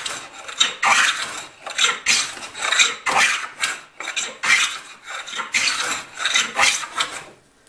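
A small Japanese hand plane shaving the edge of a walnut board in quick repeated strokes. There are about ten short hissing cuts, roughly one and a half a second, taking ever wider shavings. The strokes stop shortly before the end.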